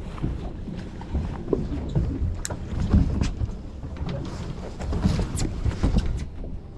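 Irregular knocks and clatter on a fishing boat over a low rumble, with the loudest thumps about three seconds in and again around five to six seconds in.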